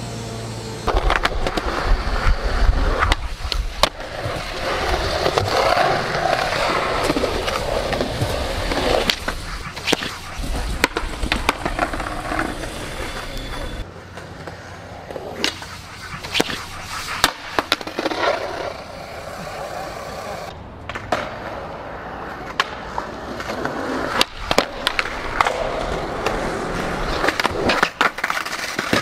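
Skateboard wheels rolling on pavement, with several sharp clacks from the board popping and landing between stretches of rolling.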